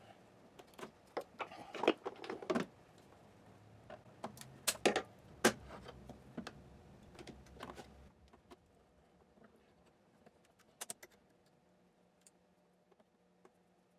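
Small tools and parts clicking and knocking on a workbench, a quick cluster of sharp clicks over the first eight seconds, then only a few scattered ticks.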